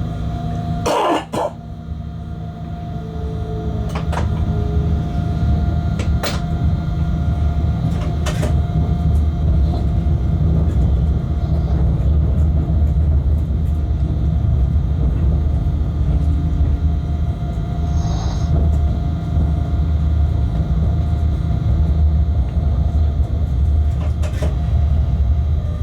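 Freight train locomotive heard from inside the cab while running: a steady low rumble with a constant hum, growing louder over the first few seconds, and a few sharp clicks or knocks scattered through it.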